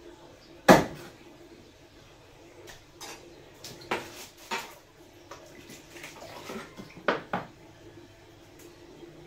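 Large kitchen knife chopping fish on a wooden cutting board. There is one loud chop just under a second in, lighter knocks around four seconds, and a quick pair near seven seconds.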